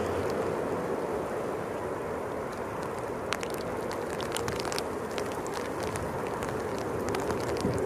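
A steady rush of storm wind and rain, mixed with the distant rumble of a Boeing 777's jet engines as it lands, easing off over the first couple of seconds. Scattered sharp ticks of raindrops hit the microphone throughout.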